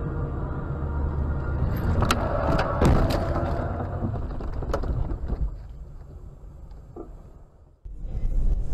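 Car road and engine noise heard from inside the cabin. About two seconds in comes a collision: a rapid run of sharp bangs and crunches over about a second, then one more knock a little later. The noise then dies away almost to silence before steady driving noise starts again abruptly near the end.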